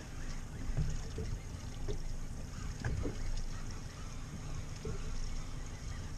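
Small fishing boat at sea: water sloshing against the hull over a steady low rumble, with a few faint knocks.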